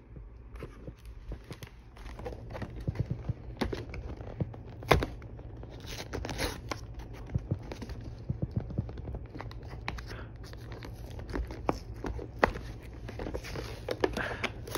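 A toy truck's cardboard-and-plastic packaging is handled and torn open, with crinkling, scraping and scattered clicks. There is one sharp knock about five seconds in.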